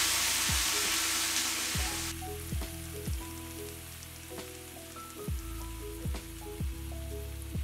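Loud sizzling hiss of corn stock (the liquid from a can of corn) hitting a hot skillet of browned bison and onions to deglaze it. About two seconds in it drops to a softer, steady sizzle. Background music with a steady beat plays underneath.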